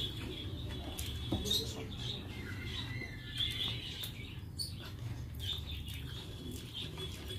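Eating by hand: fingers mixing soft rice on a metal plate, with wet chewing and lip smacks in short, irregular clicks. A low, steady hum runs underneath.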